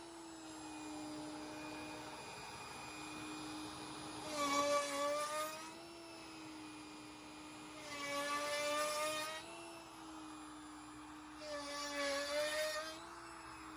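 CNC router spindle with a 7/8-inch box cove bit, spinning with a steady whine, rising into a louder cutting sound three times, about every four seconds, as the half-sphere bit carves a divot into hardwood plywood and lifts out again.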